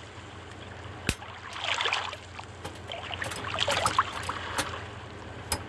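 Clicks and fumbling handling noises of a butane canister being fitted into a portable butane camping stove, with a couple of short hissy rustles in between: the canister is not yet seating properly.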